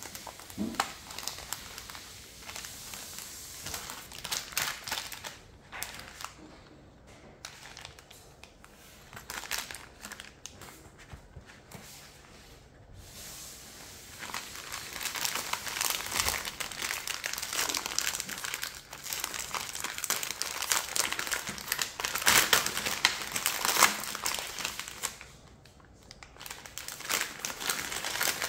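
Packaging crinkling and rustling in irregular bursts as it is handled, as when unwrapping a kit's parts. It is sparse and quieter for a stretch about a third of the way in, then busier after the middle.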